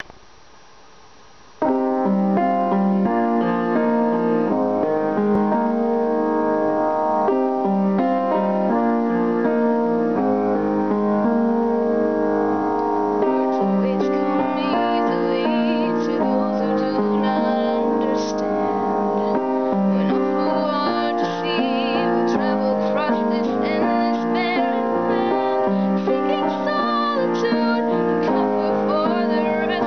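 Solo piano accompaniment with a woman singing, in a low-fidelity home recording. After a second or two of hiss, steady piano chords begin, and her voice comes in about halfway through, with vibrato on held notes.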